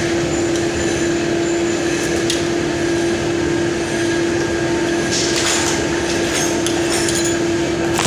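Machine tool running during machining: a steady hum over a constant noisy rattle, with a few brief clicks and hissing bursts.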